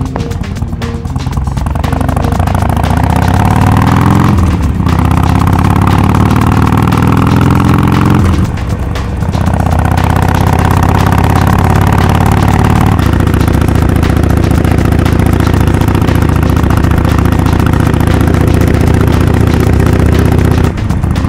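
Harley-Davidson XL1200X Forty-Eight's air-cooled V-twin through a Rinehart 3-inch slip-on exhaust with quiet baffles, accelerating under load. The pitch rises and falls at an upshift about five seconds in, rises again and falls at a second upshift near nine seconds, then holds a steady cruise.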